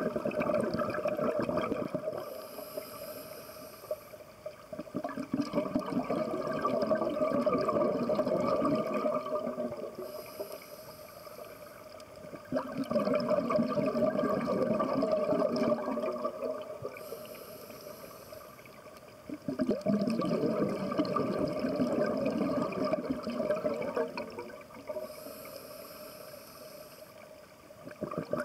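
Scuba diver breathing through a regulator underwater: about four slow breaths, each a short hiss of inhalation followed by several seconds of rumbling, bubbling exhalation.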